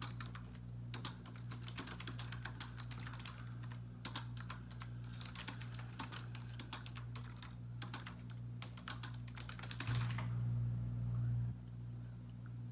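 Typing on a computer keyboard: a quick, uneven run of key clicks for about ten seconds over a steady low electrical hum. The hum swells louder for about a second and a half near the end, as the typing stops.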